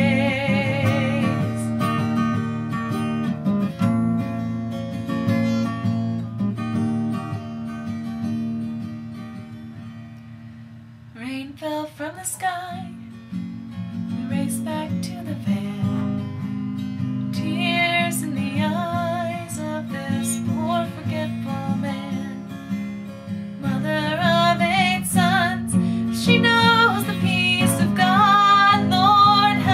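A woman singing to her own strummed acoustic guitar, opening on a held note with vibrato. The playing quietens to a soft passage about ten seconds in, then the voice comes back and the strumming builds again.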